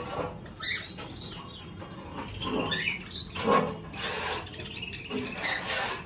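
A mixed flock of small aviary finches, including Java sparrows and Bengalese finches, chirping in short high calls, with now and then a flutter of wings.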